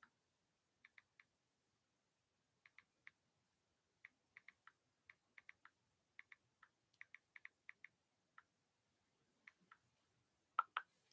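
Faint, irregular clicks of typing, coming in quick little runs, with two louder clicks near the end.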